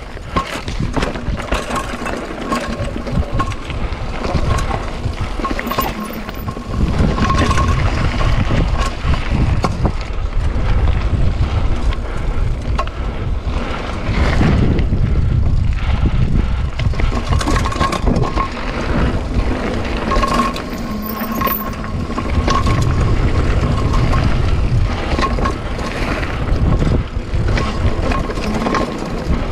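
Mountain bike descending a rocky gravel trail at speed: tyres rumbling and crunching over stone, with the bike knocking and rattling over bumps and wind noise on the camera's microphone. It grows louder about seven seconds in, and a faint thin whine comes and goes.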